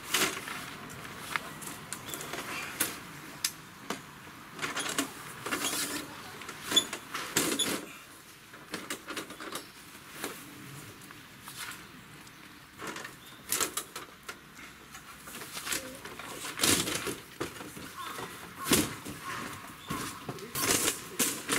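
Coleman Natural Mosaic aluminium folding table being opened and set up: scattered clicks, knocks and rattles from its metal frame and legs, with rustling on the groundsheet in between.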